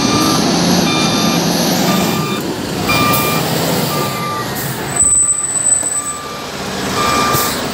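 LiuGong 848H wheel loader's reversing alarm beeping about once a second over its diesel engine running.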